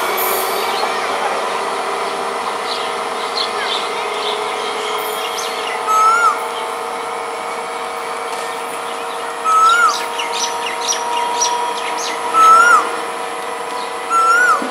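A bird repeats a short whistled call that rises then dips, about every three seconds. Fainter high chirps from other birds come in between, over a steady hum.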